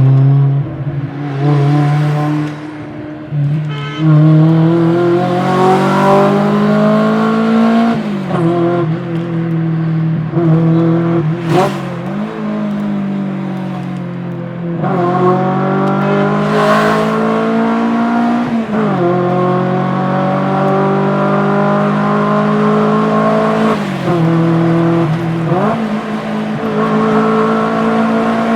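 Modified 280 hp Maruti Baleno's engine accelerating hard through the gears: its pitch climbs for a few seconds, then drops sharply at each shift, again and again. A few short, sharp noisy bursts come between some of the shifts.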